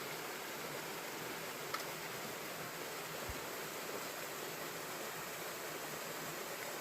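Small waterfall cascade with water rushing in a steady, even hiss, and one brief faint click about two seconds in.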